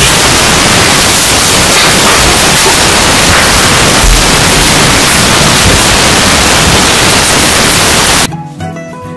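Loud, steady static-like hiss that cuts off suddenly about eight seconds in, giving way to plucked acoustic-string background music.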